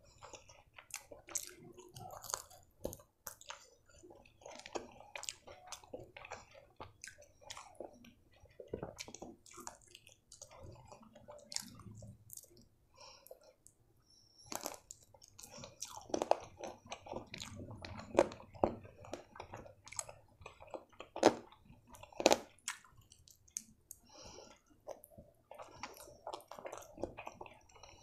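Close-miked chewing and biting of fried chicken eaten by hand, with many irregular sharp mouth clicks, louder in the second half.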